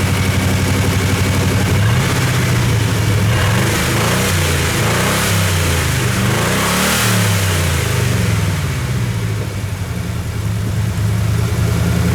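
An old Chevrolet Camaro's 305 V8 running, its pitch rising and falling several times in the middle, then settling to a steady idle.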